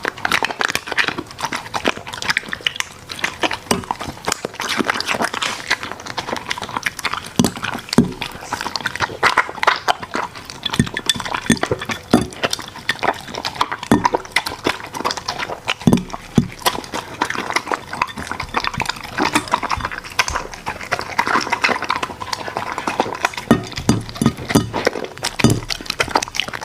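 Merle Border Collie eating from its bowl: continuous, fast, irregular chewing, crunching and lip-smacking.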